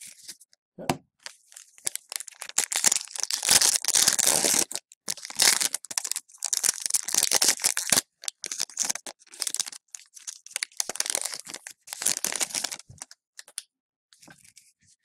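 Foil wrapper of an Upper Deck hockey card pack crinkling and tearing as it is handled and ripped open, in stretches of rustling broken by short pauses.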